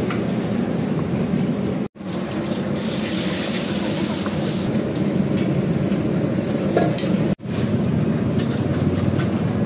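Metal ladle stirring and scraping thick starch-thickened gravy in a steel pot and wok, with a few light clinks, over a steady background roar. The sound cuts out abruptly twice for a split second.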